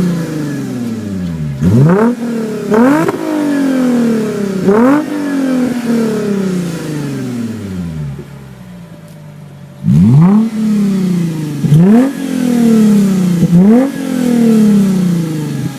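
Lexus GS350's 3.5-litre V6 revving through a PTS-Joe Z true dual exhaust: repeated quick throttle blips, each rising sharply and falling slowly back. It settles quieter for a couple of seconds past the middle, then is blipped three more times.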